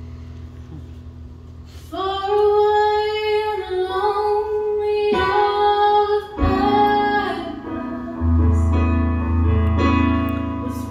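Gospel song performed live: instrumental accompaniment with steady low bass notes, then a lead voice comes in about two seconds in, singing long held notes phrase by phrase.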